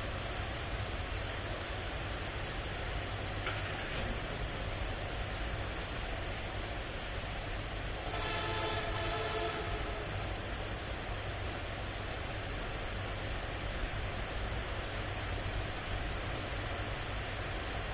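Steady hiss of rain, with a horn sounding one held blast of about two seconds about eight seconds in.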